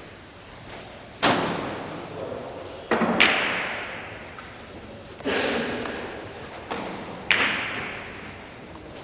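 Billiard balls clacking on a carom table: about six sharp clicks of cue on ball and ball on ball, the loudest about a second, three seconds and seven seconds in, each ringing on in a hall's echo.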